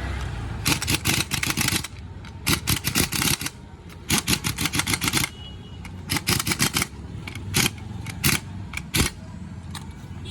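Ratchet wrench clicking in quick runs of about a second, several times over, as a nut is worked on the motorcycle.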